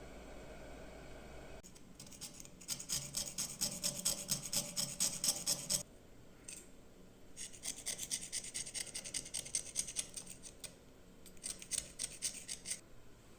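A hand tool scraped quickly back and forth over the metal of an old, rusty hunting knife, in three runs of rapid strokes separated by short pauses.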